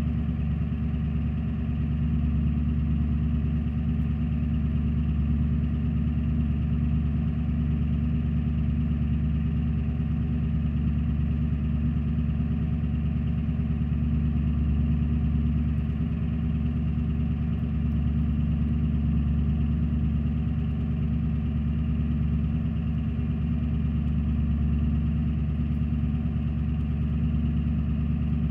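Ford E350 van's 7.3 Power Stroke turbodiesel V8, fitted with dual 5-inch exhaust, idling steadily with a deep, even tone and no revving.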